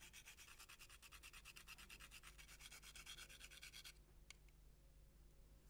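Whole nutmeg being rubbed on a fine metal grater: faint, quick, even rasping strokes, about six a second, that stop about four seconds in.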